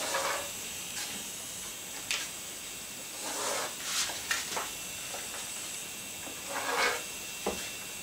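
A pen drawn along a wooden straightedge across a thin plastic sheet on a table: three short, faint scratchy strokes, with a few light knocks as the wooden straightedge is shifted between lines.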